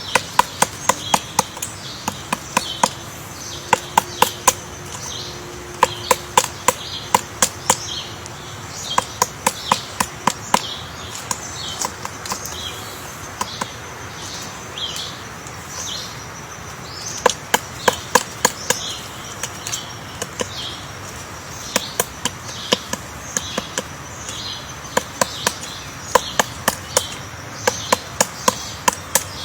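A woodpecker pecking into wood: sharp knocks in runs of five to eight, about three a second, with pauses between the runs. Small birds chirp throughout.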